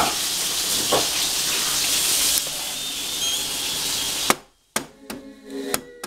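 A loud, steady hiss that cuts off sharply about four seconds in, followed by a few sharp clicks.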